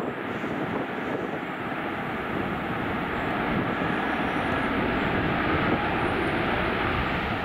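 Airbus A320-family airliner's twin jet engines running as it rolls along the runway: a steady rushing jet noise with a faint steady whine in it, growing slowly louder.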